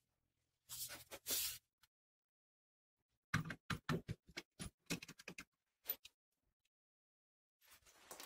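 Handling noise from a homemade steel angle-grinder stand as the mounted grinder is moved by hand: a short scraping rustle about a second in, then a quick run of light clicks and knocks, and another brief rustle near the end.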